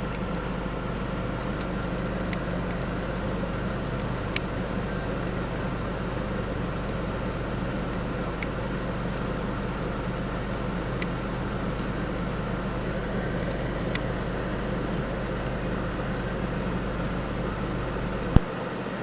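A vehicle engine idling with a steady low hum. There are a few faint ticks, and a sharp click near the end, after which the deepest rumble drops away.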